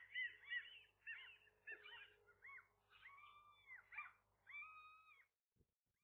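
Gulls calling: a run of high calls that rise and fall, thinning out, then two longer drawn-out calls before they stop about five seconds in.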